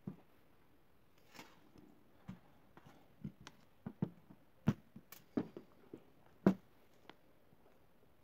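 Irregular light clicks and knocks of hands handling a disassembled plastic two-pin plug and its wires on a tabletop, with the loudest knock about two-thirds of the way through.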